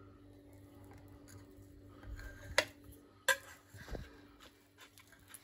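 Metal cutlery clinking against a dish as a baked carrot cake is cut: a quiet start, then two sharp clinks a little after two and a half and about three seconds in, followed by a soft low thud.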